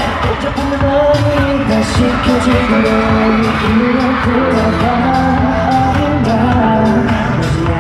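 Live K-pop concert music: a loud pop track with a steady beat and a sung melody over it.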